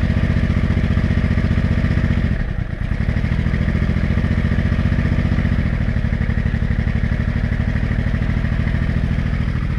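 Honda Shadow VT500C's V-twin engine idling steadily as it warms up, dipping briefly about two and a half seconds in. It runs without a clunk, its broken and loose bolts freshly repaired.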